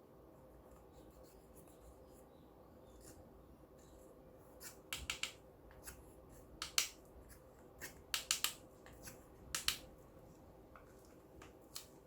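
Slime being worked by hand, giving short, sharp clicks and pops from trapped air. It is faint at first, then the clicks come in scattered clusters through the second half.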